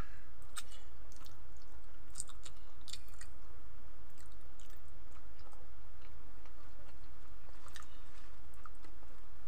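A person chewing a mouthful of soft boiled vegetables: scattered wet mouth clicks and smacks, over a steady low hum.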